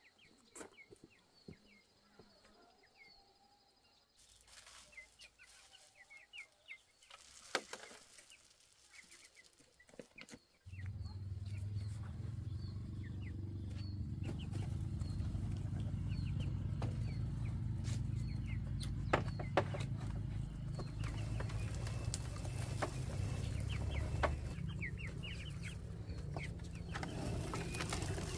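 Chickens clucking, with short high chirps and scattered clicks. About a third of the way in, a steady low rumble starts suddenly and stays on, louder than the birds.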